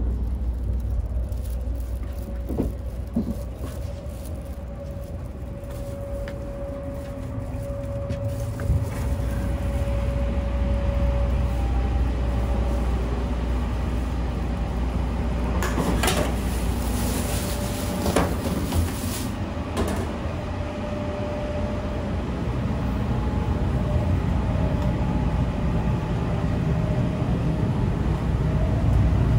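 Sunrise Express sleeper train (a 285 series electric multiple unit) running, heard from inside the carriage: a steady low rumble with scattered clicks and a faint steady tone. About halfway through, a louder rush of noise lasts about three seconds.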